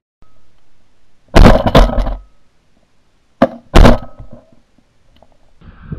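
Suppressed shotgun shots fired in two bursts, about a second and a half in and again near four seconds in. Each is a sharp, loud thud with a brief tail rather than an open blast.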